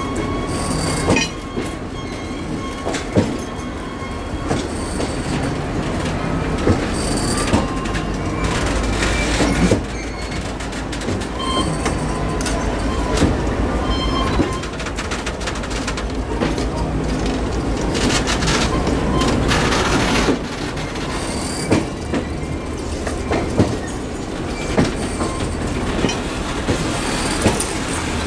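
Passenger cars of the Cuyahoga Valley Scenic Railroad train rolling past: a steady rumble of steel wheels on rail, with sharp clicks over the rail joints and short high squeals from the wheels.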